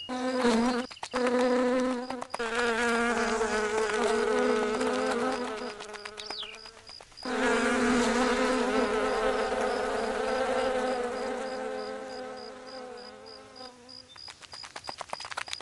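Several flies buzzing in flight, a steady pitched drone. It stops briefly about six to seven seconds in, comes back, and fades away near the end.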